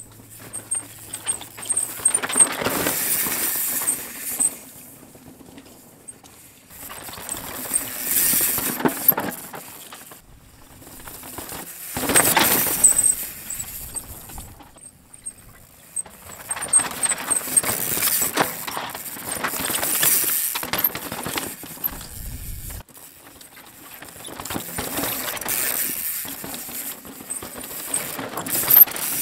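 Mountain bikes ridden fast down a loose, dusty dirt trail, passing one after another: tyres skidding and tearing through the dirt, each pass building and fading over a few seconds.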